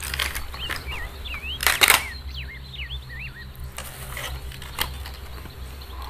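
Plastic toy vehicles being handled and swapped: scattered clicks, with a louder clatter just under two seconds in. Birds chirp repeatedly in the background over a steady low hum.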